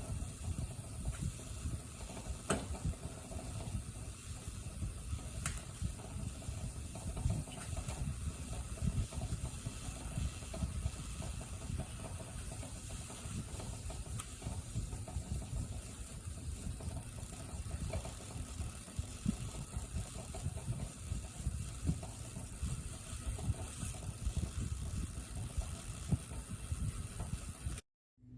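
Drip coffee maker brewing: a steady hiss with a dense, crackling low gurgle as the water heats and sputters through.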